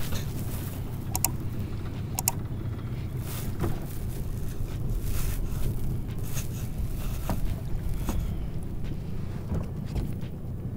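Small boat's outboard motor running slowly with a steady low rumble as the aluminum boat comes in at low speed, with wind on the microphone. A few light knocks in the first couple of seconds.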